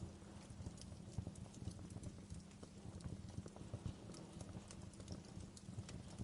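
Wood fire crackling: small pops and snaps at irregular moments over a low, steady rumble.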